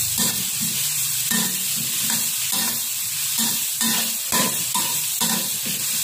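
Chopped garlic, shallots and chilies sizzling in hot oil in a wok, with a spatula scraping and stirring through them about twice a second.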